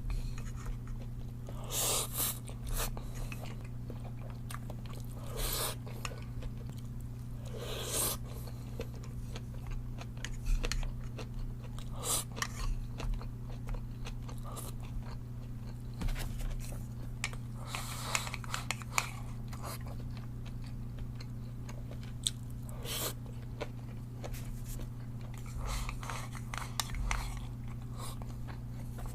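Close-up chewing and crunching of stir-fried bean sprouts and rice, in scattered bursts with small clicks of the mouth, over a steady low hum.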